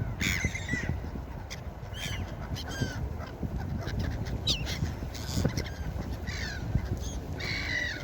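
Seagulls calling: many short, overlapping cries with rising and falling pitch, over a steady low rumble of surf and wind.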